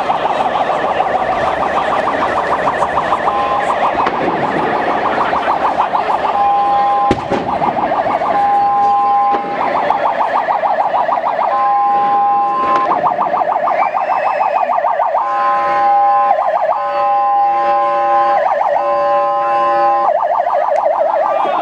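Electronic emergency-vehicle siren switching every second or two between a fast warble and a steady held two-note tone. From about two-thirds of the way in, a second siren's tones overlap it. A large crowd murmurs underneath.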